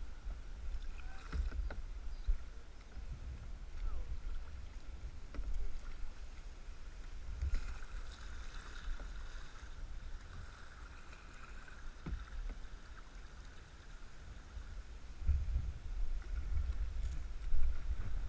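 Kayak paddle dipping and splashing in river water, a few strokes several seconds apart, over a steady low rumble on the microphone.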